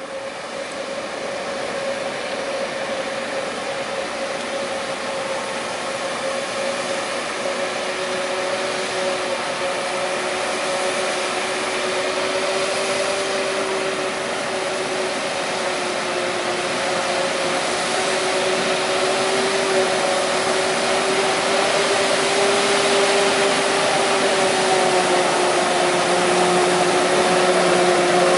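Heavy diesel farm machinery running under load: a steady mechanical rush with a constant whine on top, slowly growing louder as it draws closer.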